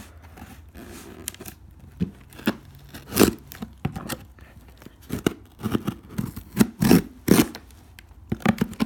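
Knife cutting through the tape seal on a cardboard box: an irregular run of sharp tearing and scraping strokes, loudest in the second half.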